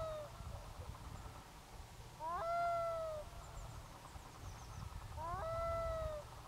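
Black-throated loon crying: each call swoops up sharply, then holds and slowly falls for about a second. It comes about every three seconds, twice in full, after the tail of one at the start.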